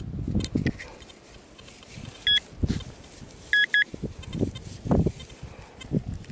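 Metal detector beeping at a target: one short electronic beep about two seconds in, then a quick pair of beeps a little over a second later. Between the beeps there is rustling and scraping as hands work through grass and soil at the dig hole.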